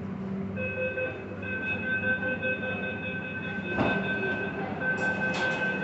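Metro train running between stations, heard from inside the car: a steady, high whine of several held tones over a low rumble, with two sharp knocks about a second and a half apart in the second half.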